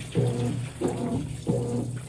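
Top-load washing machine's impeller agitating a load of towels in soapy water: the drive motor hums in short strokes, reversing about every two-thirds of a second, with the wet load churning and sloshing.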